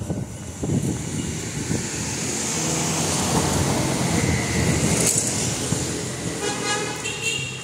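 City street traffic: a motor vehicle passes close by, its engine and tyre noise swelling to a peak in the middle and fading. A brief high-pitched whine comes in near the end.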